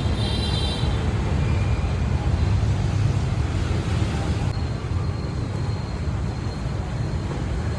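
Steady low rumble of street traffic with a constant background hiss.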